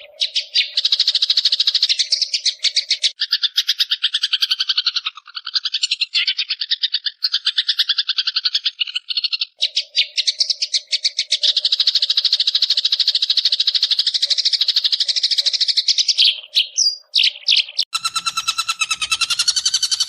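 Long-tailed shrike (cendet) giving its 'ngekek' call: a long, rapid chatter of fast-repeated high notes, broken by a short pause about halfway. A few separate sliding notes follow, and near the end it gives way to a different, held buzzy call.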